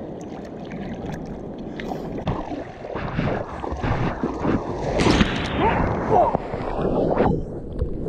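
Water sloshing and splashing right at the microphone as a surfer paddles a soft-top surfboard through chop, with wind buffeting the microphone; a louder splash comes about five seconds in.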